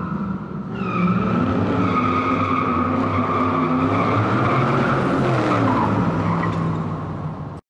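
Burnout sound effect: tyres squealing in a steady high tone over a car engine revving, its pitch rising and then falling. It cuts off suddenly at the end.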